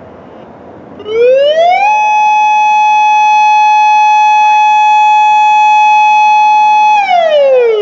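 Federal Signal Modulator II 8032B electronic outdoor warning siren sounding its alert tone on a test. About a second in it rises quickly, holds one steady, very loud pitch for about five seconds, then slides back down near the end.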